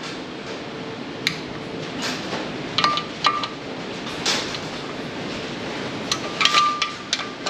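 Socket ratchet and wrench clicking and clinking in several short bursts, some with a brief metallic ring, as clutch pressure plate bolts are run down onto the flywheel.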